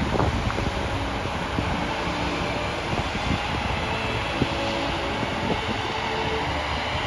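Heavy-haul truck's diesel engine running and its multi-axle trailer rolling slowly, a steady rumble with small clicks and creaks, hauling a heavy transformer.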